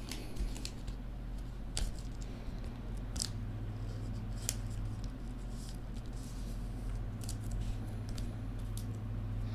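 Trading cards and their packaging being handled: a few short, crisp snips and crinkles spaced a second or so apart, over a steady low hum.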